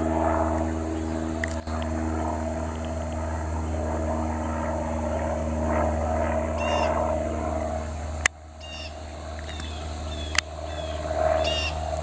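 Single-engine propeller light aircraft droning steadily overhead, with small birds chirping over it in the second half. Two sharp clicks cut in, the louder one about eight seconds in.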